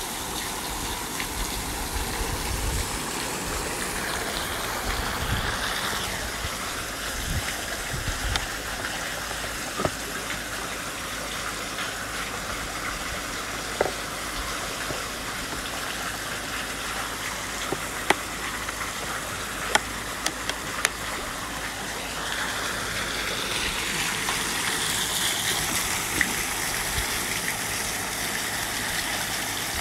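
Steady gushing and spattering of a water jet pumped through a garden hose by an Einhell GE-PP 18 RB Li cordless battery pump, with a few sharp clicks in the middle stretch and the spray growing louder near the end.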